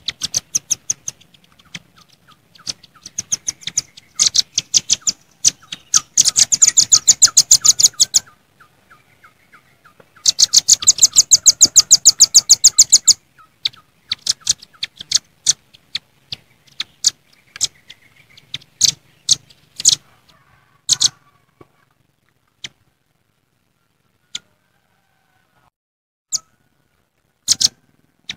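Velvet-fronted nuthatches calling: rapid strings of sharp, high chipping notes. Two long, fast rattling runs come in the first half, then the calls thin out to scattered single notes.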